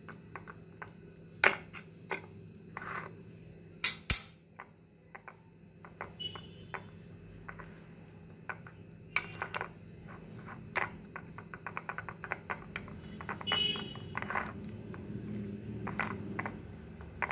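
A spoon clinking and scraping against a small glass bowl in irregular taps while stirring ragi (finger millet) flour and water into a lump-free paste, with a few louder knocks of spoon on glass.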